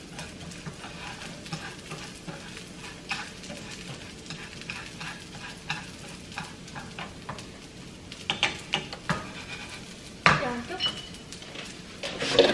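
Washed raw rice toasting in oil in a nonstick frying pan, stirred with wooden chopsticks: a steady light sizzle with frequent small scrapes and taps of the chopsticks against the pan, the stage where the rice is stir-fried to firm it before the congee water goes in. A sharp knock about ten seconds in and a louder clatter at the very end.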